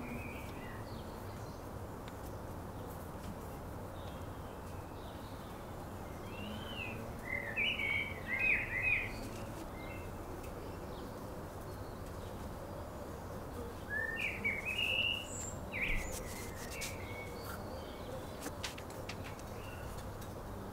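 Small birds chirping in two short bursts of quick, rising and falling notes, one before the middle and one about two thirds of the way in, over a steady low hiss. A few faint light clicks near the end.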